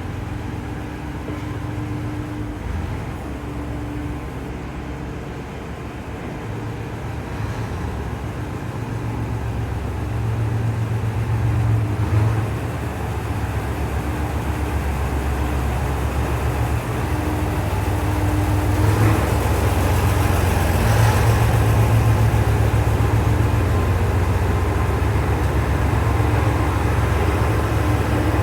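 Diesel railcar engine running with a low rumble that grows louder from about ten seconds in, as the Setsugekka (ET122-1000 series) pulls out.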